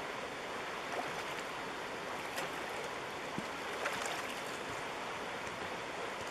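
Shallow river running steadily over a rocky bed, a constant rush of water, with a few faint ticks.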